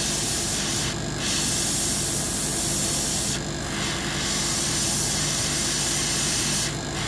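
Gravity-feed airbrush spraying paint, a steady hiss of air and paint that stops for a moment three times: about a second in, midway, and just before the end, as the trigger is let off.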